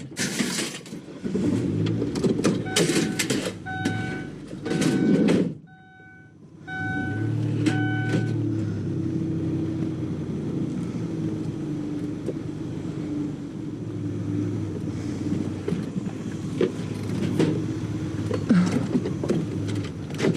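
Minivan chime beeping steadily while a heavy appliance is pushed into the van with knocks and clatter. After a brief pause about six seconds in, the minivan's engine runs steadily.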